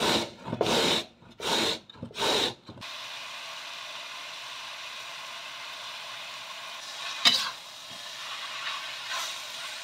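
A young green papaya rubbed four times across a wooden shredding board with a metal blade, each stroke a rough scrape. Then a steady sizzle of shredded papaya stir-frying in a wok, with a metal spatula scraping the pan once later on.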